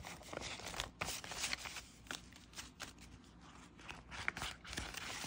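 Paper banknotes rustling and scraping in irregular strokes as a small stack is handled and slid into a cash binder's clear plastic pocket.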